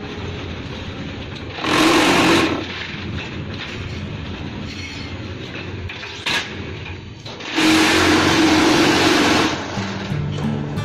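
QTJ4-28 semi-automatic concrete block making machine running, with a steady mechanical noise, a sharp knock, and two loud bursts of vibration: a short one about two seconds in and a longer one of about two seconds near the end. Background music with a steady pitched pattern comes back at the very end.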